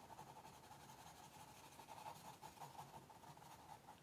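Faint scratching of a white pastel stick on brown paper in quick, repeated short strokes, as hedgehog spines are sketched in.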